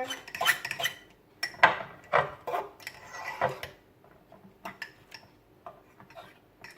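Utensil clinking and scraping against a mixing bowl as melted butter is stirred into a milk-and-cream mixture for icing: irregular knocks, louder at first and fainter after about four seconds.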